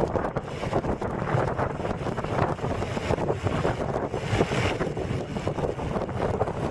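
Wind buffeting a compact camera's built-in microphone while moving along a road at speed: a rough, rumbling noise that swells and fades every second or so.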